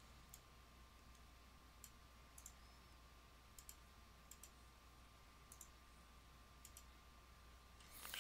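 Faint computer mouse clicks, scattered and irregular, over a steady low electrical hum. A brief louder rustle comes near the end.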